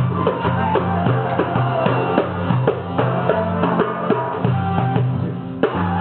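Live Middle Eastern percussion and strings: a frame drum and darbuka beat a quick, steady dance rhythm while a saz plucks the melody.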